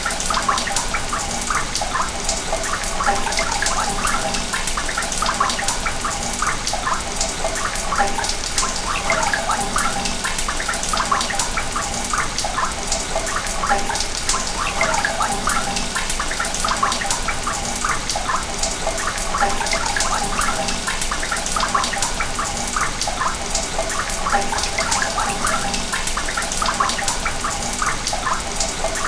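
Water running through a sewer pipe: a steady rush of flow with many small gurgles throughout.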